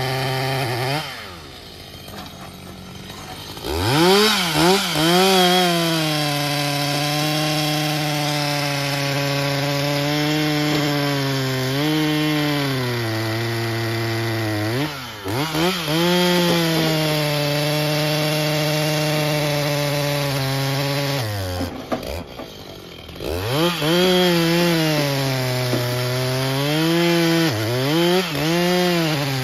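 A two-stroke chainsaw cutting into wood. The engine note rises as it revs up, then dips and holds lower under the load of the cut. It twice drops away briefly, once near the start and again past the middle, before revving back up.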